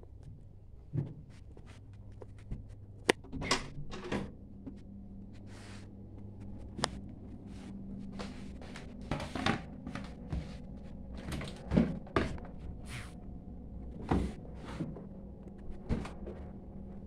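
Plastic laundry basket and laundry being handled at a top-loading washing machine: irregular knocks, thunks and short rustles, over a steady low hum.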